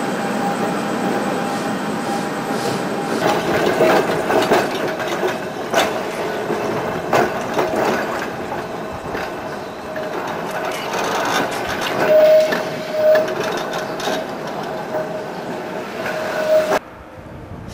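Electric tram running slowly over the curved depot-yard tracks, its wheels clicking over rail joints and points, with a held pitched whine that swells into two brief louder squeals about twelve seconds in. The sound cuts off suddenly a second before the end.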